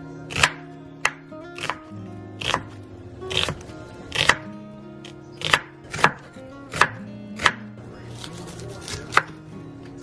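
Chef's knife slicing through an onion onto a wooden cutting board: about a dozen sharp knocks of the blade meeting the board, roughly one a second. Quiet background music runs underneath.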